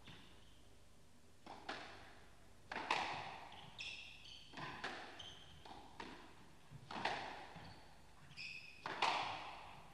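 Squash rally: the ball smacking off rackets and the court walls in quick succession, each hit echoing in the hall, starting about a second and a half in. Twice there are short high squeaks, likely court shoes on the floor.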